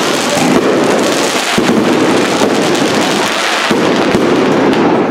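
Aerial fireworks going off in quick succession: a dense, continuous crackling packed with many sharp bangs and pops.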